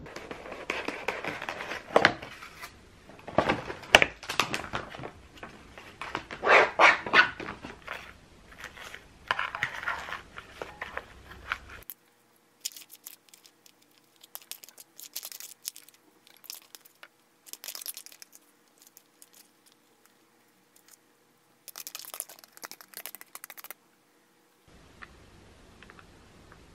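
Loud crinkling and rustling for about the first twelve seconds, then quieter scattered clicks and a short rustle as a packaged salad is tipped from its plastic tray into a ceramic bowl and a plastic dressing sachet is opened and squeezed.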